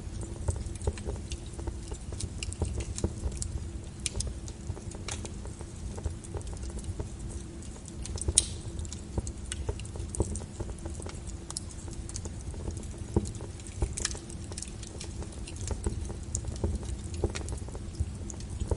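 Wood fire crackling, with irregular sharp pops and snaps over a low steady rumble. The loudest pops come about eight and fourteen seconds in.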